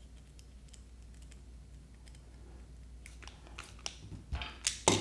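Small metal-on-plastic clicks and scrapes as M3 screws, washers and nuts are fitted to a 3D-printed plastic wheel and a screwdriver turns a screw in. The clicks are sparse at first and grow louder after about three seconds, with a knock and a sharper clatter near the end.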